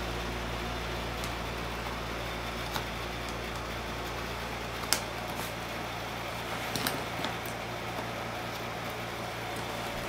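Steady fan-like room hum with a few faint clicks and taps, the sharpest about five seconds in, as a suction cup is pressed onto and handled against the iMac's glass front panel.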